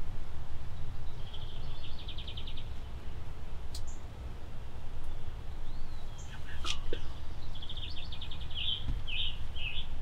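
Small songbirds singing: a quick high trill about two seconds in and a run of high chirps near the end, over a steady low rumble, with a few faint clicks.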